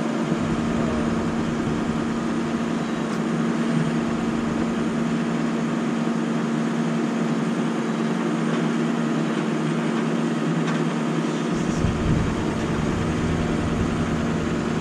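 A truck engine running steadily at constant speed, driving the truck-mounted crane as it lowers an underground propane tank into its hole.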